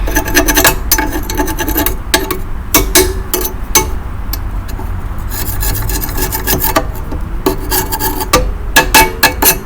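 Scraping at the underside of a lawn mower deck to clean off built-up grime: quick, uneven rasping strokes that ease off for a couple of seconds midway, then pick up again.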